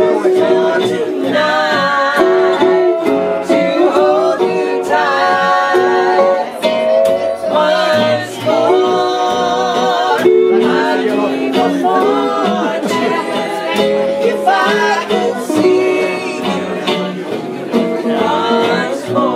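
Small acoustic string band playing live: banjo and mandolin picking, with a wavering lead melody line carried over them.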